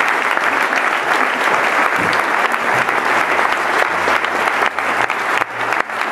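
Audience applauding, a dense, steady clapping that starts to thin out near the end.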